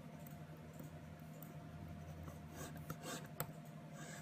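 A pen drawing quick hatching strokes on paper: faint, scratchy, busiest a couple of seconds in, with one sharper tick of the nib.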